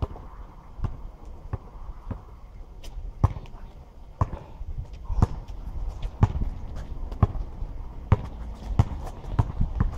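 Basketball bouncing on an asphalt court, dribbled at about one bounce a second, the bounces coming faster near the end.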